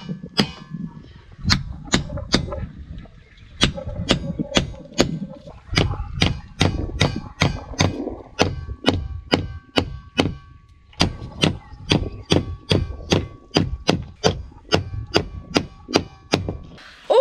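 Hammer blows driving copper boat nails through a wooden hull's planking into oak frames: a steady run of sharp strikes, about two to three a second, each with a short metallic ring and a little echo, pausing briefly twice.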